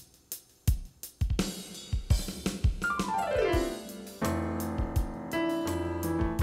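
Electronic keyboard playing a gospel song intro over a steady drum beat. Keyboard notes come in over the beat about a second in, followed by a quick run of notes falling down the keys, then held chords from about four seconds in.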